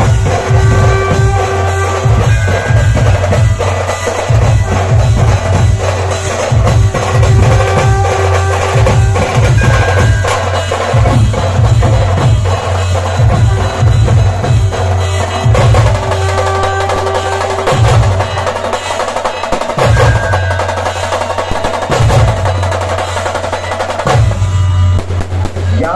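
Dhol-tasha ensemble drumming: fast, dense strokes on the tasha over heavy, booming dhol beats, played at full volume.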